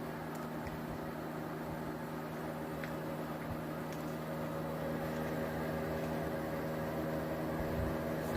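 Carrier window-type air conditioner running: a steady hum with several held tones under an even rush of fan noise.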